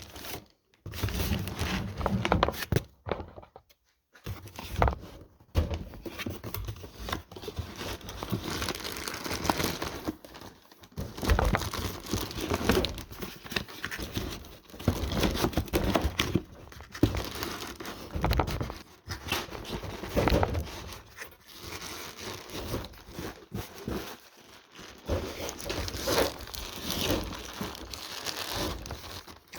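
Packaging crinkling, rustling and tearing in uneven bursts as a new A/C compressor is unwrapped.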